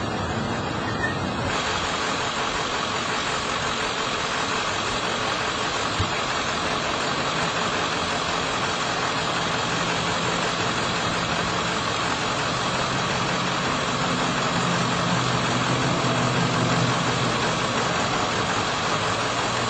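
A vehicle engine running steadily at idle under a dense, steady hiss, its low hum clearer in the second half.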